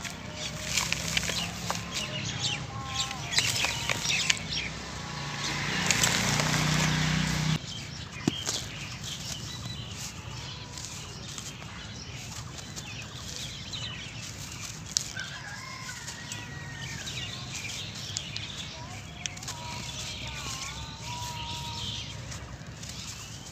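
Dry sand-cement crumbled and sifted by hand: a loud gritty pouring and crackling for about the first seven seconds that cuts off sharply, then softer crunching and trickling as hard chunks are crushed and the grit falls through the fingers. Short bird calls sound in the background.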